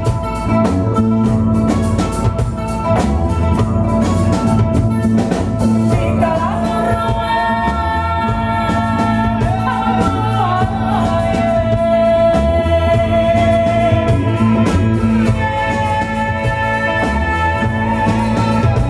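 Live band playing a song: women's voices singing over acoustic guitar, bass guitar, drum kit and hand drum. The first few seconds are drum-heavy, and long held sung notes come in about six seconds in.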